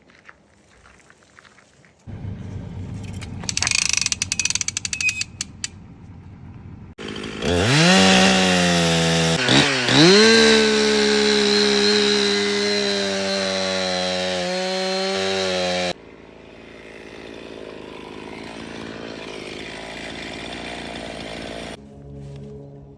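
Chainsaw revving up twice and running at high speed for several seconds, then cutting off suddenly. Before that, a quieter stretch with rapid ticking.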